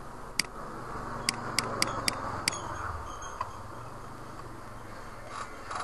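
Computer mouse clicking: six sharp clicks in about two seconds, then two fainter ones near the end, over a steady low room noise.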